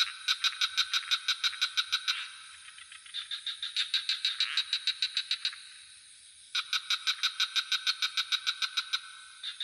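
Frogs calling in rapid pulsed trills of about eight pulses a second. The trills come in bouts of two to three seconds with short pauses between them, over a steady high insect drone.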